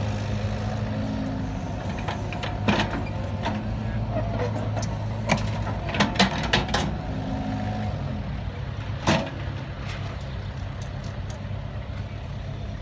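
Diesel engine of a Cat 313B tracked excavator running steadily under working load, with several sharp metallic clanks, the loudest a cluster about six seconds in and one about nine seconds in.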